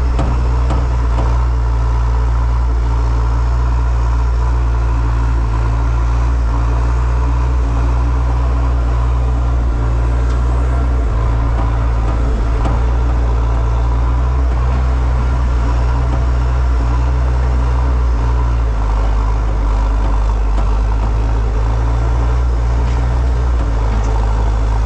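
A large engine running steadily with a deep, loud rumble; its low note shifts slightly twice near the end.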